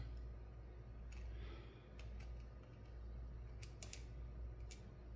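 Faint small clicks and ticks, a handful scattered irregularly, from the pins and parts of a 5-pin pin-tumbler rim cylinder being handled as it is taken apart, over a low steady hum.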